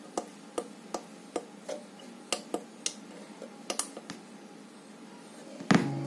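About a dozen sharp, unevenly spaced clicks over the first few seconds. Just before the end, a loud sound with low steady tones starts abruptly.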